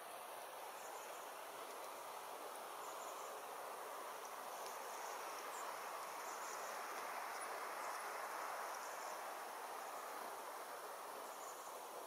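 Faint outdoor ambience: a steady soft hiss with short, high chirps every second or two.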